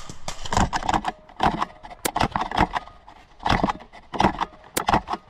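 Airsoft gunfire: irregular clusters of sharp clicks and rattles, with single sharp cracks about two seconds in and twice near the end.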